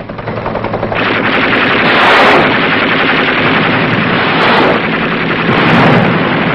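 Automatic machine-gun fire: a lighter rapid rattle at first, becoming louder and continuous about a second in.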